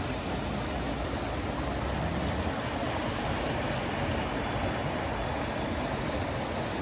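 Shallow mountain stream running over rocks: a steady hiss of flowing water.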